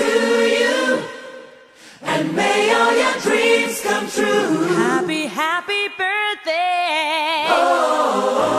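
Voices singing a song in a choir-like style, dropping away briefly about a second in, with a wavering held note in the second half.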